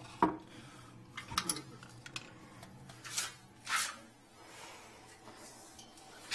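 Handling noises of someone moving about and reaching for things on a bathroom floor: a knock just after the start, a few light clicks about a second in, and two brief swishing scrapes around three and four seconds.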